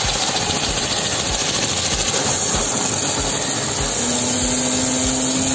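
Mechano 2200 W, 160 bar electric pressure washer running, its jet hissing hard against a motorcycle's rear wheel and hub, with a low pulsing underneath about three times a second. A steady hum joins about four seconds in.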